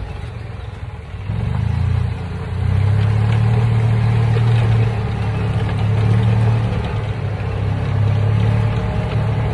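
Golf cart running as it is driven along, a steady low hum that gets louder about a second in and again at about two and a half seconds as it speeds up.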